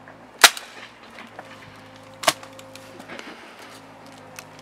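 Two sharp airsoft rifle shots about two seconds apart, the first the louder, over a steady low hum.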